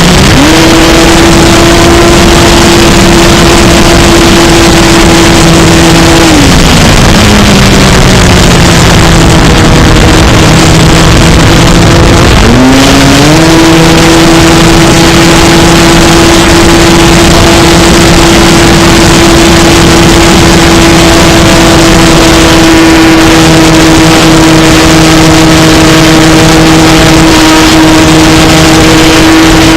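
Electric RC model airplane motor and propeller running with a steady whine over a loud rush of air noise. It is throttled down about six seconds in, and throttled back up again about thirteen seconds in.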